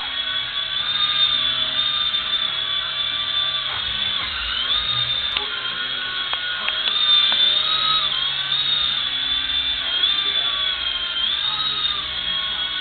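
Mini remote-control helicopter's small electric motor and rotor whining continuously, the pitch wavering up and down as the throttle changes.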